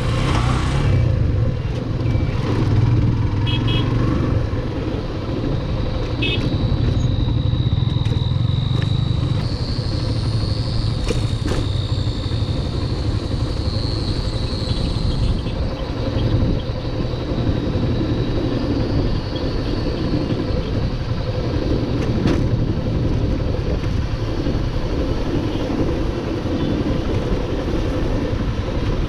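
Yamaha Fazer FI 150's 149cc single-cylinder fuel-injected engine running steadily under way, with road and wind noise.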